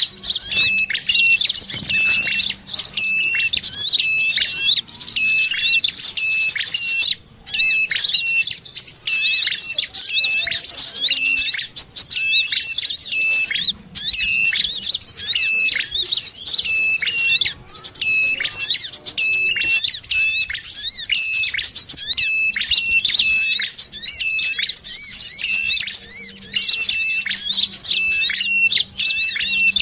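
Bird-lure call recording: dense, rapid high chirping and chattering of small birds, layered as sogon chatter with calls of the kolibri kelapa (brown-throated sunbird) and the prenjak kepala merah. A short note repeats about twice a second underneath, and the chorus breaks off briefly a few times.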